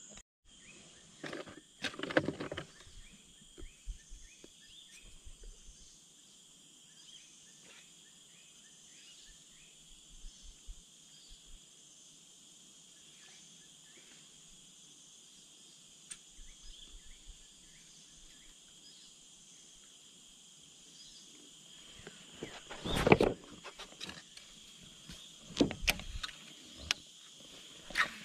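Insects droning steadily in a high, continuous whine, with short repeated chirps in the first few seconds. A few louder bursts of noise break in, the loudest about 23 seconds in.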